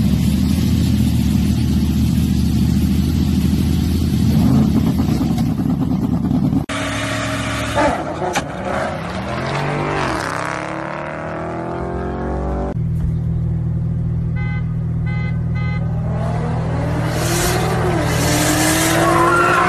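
Car engines across a few short clips: a steady engine drone, then a car passing with its pitch falling away, then an engine running with a brief run of quick beeps and rising revs near the end.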